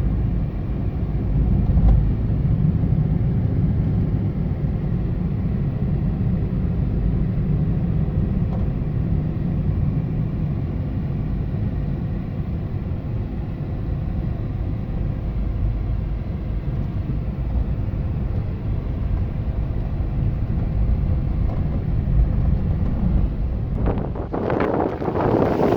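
Strong wind buffeting the microphone, a steady deep rumble. Near the end a brighter rushing noise comes in over it.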